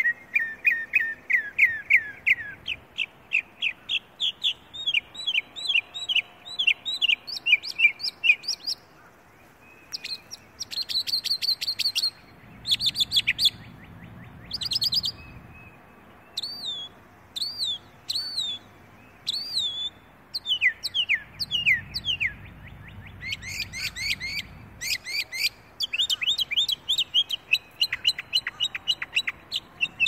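Northern mockingbird singing close by: a long run of varied phrases, each repeated several times in quick succession before switching to a new one. The phrases include falling whistles, rising notes, rapid buzzy trills and upswept chirps.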